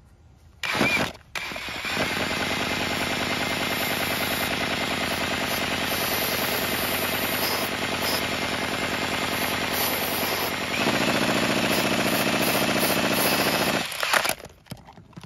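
A short hiss of aerosol starting fluid sprayed into the intake, then a cordless drill spinning the crankshaft of a home-built Lego two-stroke engine, a loud steady mechanical rattle that gets louder about eleven seconds in. It stops about fourteen seconds in with a sharp knock.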